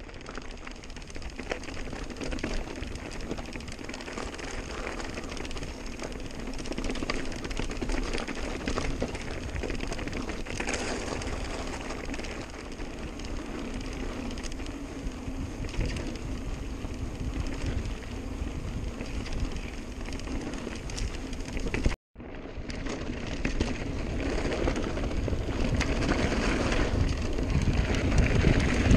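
Santa Cruz Nomad full-suspension mountain bike rolling over a dirt singletrack: steady tyre noise on dirt with a constant light rattle and clicking from the bike. The sound cuts out for a moment about three quarters of the way through, and wind on the microphone grows louder near the end as speed builds.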